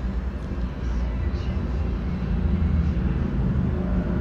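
A steady low rumble with a faint even hiss over it.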